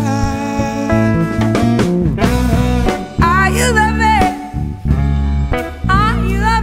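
Small jazz band playing live: electric bass, drums and electric guitar, with a melodic lead line bending and wavering in pitch over them.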